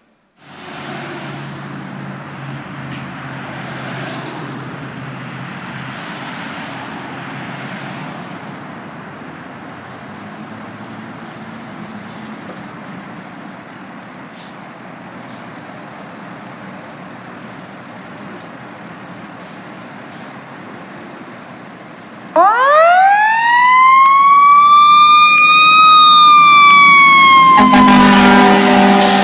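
Fire engine driving with a steady rumble of engine and road noise. About 22 seconds in its siren winds up steeply to a loud high wail, then slowly falls in pitch. A deep horn blast sounds near the end.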